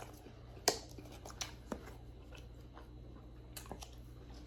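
A person chewing food close to the microphone, with scattered soft wet mouth clicks, the sharpest about 0.7 s in.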